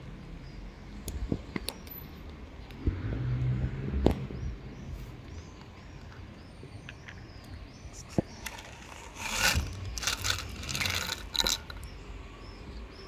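Dry cat kibble rattling and scattering onto concrete as more is poured out, a cluster of rattly bursts from about nine to eleven and a half seconds in. Before that, scattered small clicks of cats crunching and nosing the kibble.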